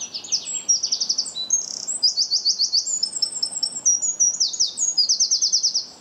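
Eurasian wren singing: a loud, long song of clear high notes alternating with fast rolling trills, which stops shortly before the end.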